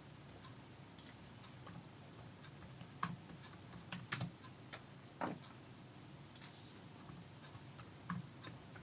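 Sparse, faint clicks of a computer mouse and keyboard, about half a dozen spread a second or more apart, over a low steady background hum.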